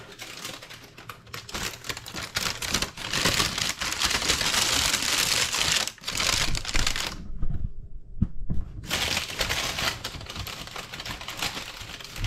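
Baking parchment crinkling and rustling around a hot loaf as it is handled, with many small crackles. The sound stops briefly about seven seconds in, then goes on.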